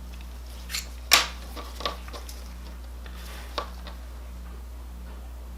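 A hobby knife scraping and clicking on a small diecast metal model car, trimming away excess glue: a few short clicks and scrapes, the loudest about a second in, over a steady low hum.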